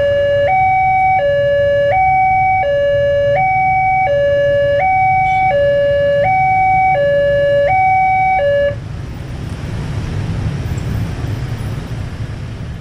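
Railway level-crossing warning alarm sounding a steady alternating two-tone hi-lo signal, each note lasting about two-thirds of a second. It cuts off suddenly about nine seconds in as the barrier lifts. The low rumble of many motorcycle engines runs underneath and continues alone after the alarm stops.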